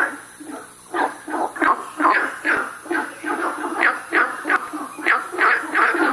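Günther's frog calling with its paired vocal sacs: a quick series of short, repeated notes, about three a second.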